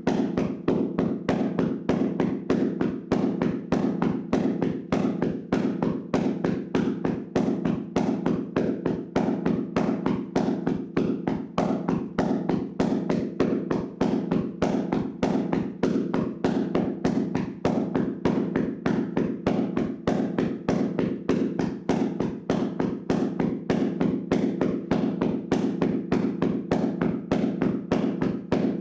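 Hands slapping and tapping on a person's body in a vigorous tapping massage: dull, fleshy slaps in a fast, even rhythm of about four a second.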